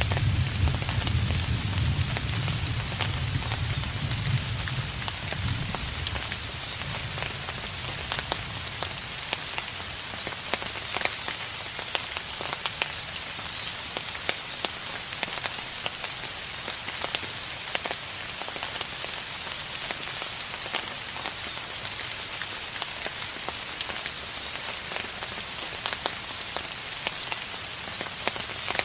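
Steady rain falling, with frequent drops ticking on a hard surface. A low rumble of distant thunder dies away over the first several seconds.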